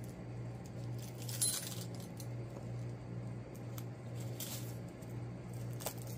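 A set of keys jangling and clinking in the hand while a small card box is opened, with a few short scrapes and rustles of card and packaging.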